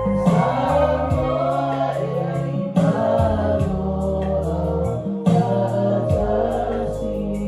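Group singing led by a woman's voice through a handheld microphone, accompanied by an electronic keyboard holding sustained chords.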